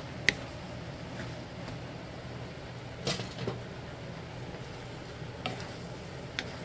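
Wooden spatula stirring and tossing fried rice in a nonstick pan: a sharp tap against the pan about a quarter-second in, a scrape and knock around three seconds, and two lighter taps near the end, over a steady low hum.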